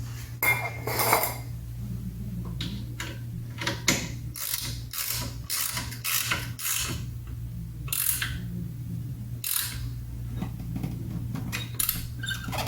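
Ratchet wrench clicking in short irregular runs as bolts on the brake assembly are run in and snugged down. A steady low hum sits underneath.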